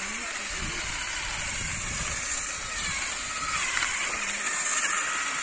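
Battery-powered electric olive harvester running steadily in the tree as its combs shake the olive branches.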